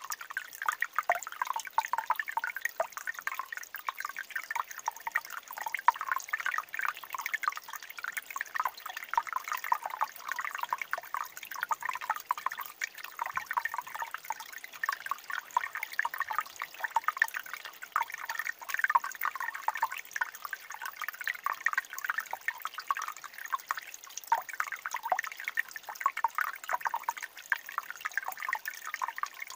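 A thin mountain stream trickling among boulders: a steady, busy patter of small drips and gurgles.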